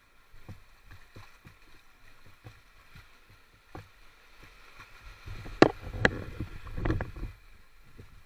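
Shallow seawater lapping and sloshing at the water's edge, with scattered small splashes; a louder burst of sloshing with two sharp knocks comes a little past the middle. A faint steady whine sits underneath.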